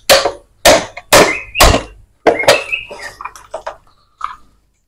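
Rubber-covered mallet striking a Yamaha Vixion engine's crankcase: a run of sharp blows about two a second, then lighter taps near the end. The case is stiff and is being knocked apart.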